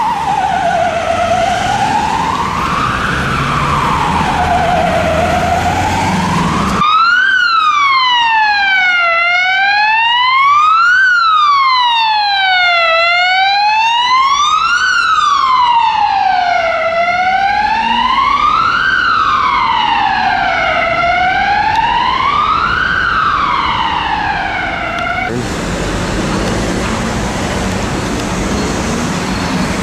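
Ambulance siren on a slow wail, one tone gliding up and down about every four seconds, heard across an edit between two passing ambulances. About 25 seconds in it cuts to busy city traffic with the rumble of buses and engines.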